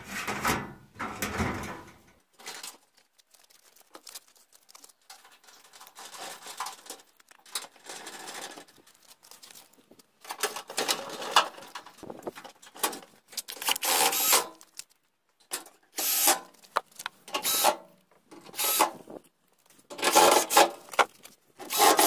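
Sheet-metal panels of a tumble dryer cabinet being handled and knocked into place, then a cordless drill driving screws into the metal back panel in a series of short bursts, one after another.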